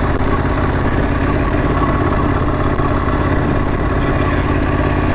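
Ducati Monster 821's 821 cc L-twin engine running steadily at low speed on the move, with no rise or fall in revs.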